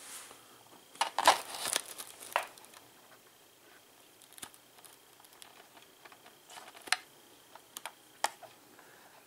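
Quiet handling noise: a burst of rustling about a second in, then a few scattered sharp clicks, over a faint steady high whine.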